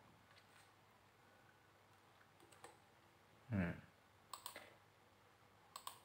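Faint computer mouse clicks, a few scattered single and double clicks, with one brief louder low sound about halfway through.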